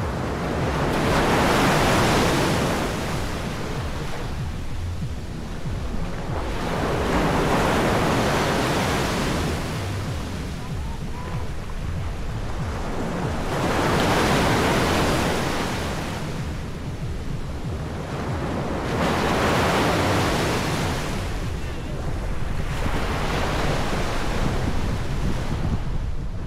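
Sea waves breaking and washing up a beach, each swell of surf rising and falling about every five to six seconds, over a steady rumble of wind on the microphone.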